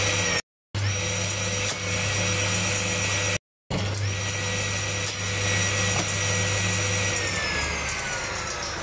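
Table-mounted circular saw running with a steady motor hum and high whine, cut twice by a moment of silence. About seven seconds in, the whine starts to fall steadily in pitch as the blade winds down. A few faint ticks sound over it.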